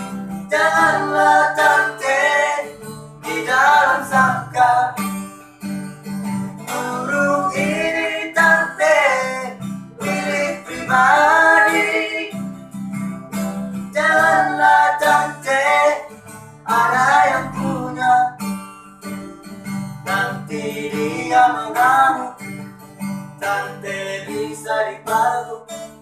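Nylon-string acoustic guitar strummed as accompaniment, with a melody carried over it in phrases of a few seconds.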